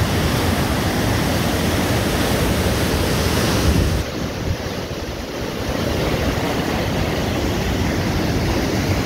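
A river in flood rushing over rocky falls: a steady roar of white water. It dips slightly about four seconds in, then comes back up.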